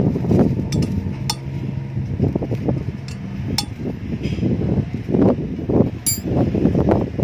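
Light metallic clicks of an Allen key working the bolts of an aluminium hub flange adapter on a motorcycle alloy wheel as they are tightened, over a steady low hum.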